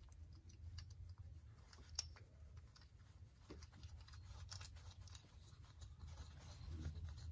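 Faint small metallic clicks and scrapes of a bolt being threaded by hand into a freshly installed HeliCoil thread insert, with one sharper tick about two seconds in.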